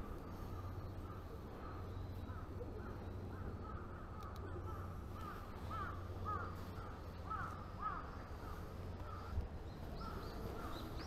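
Crows cawing, a long string of short calls, over a steady low rumble.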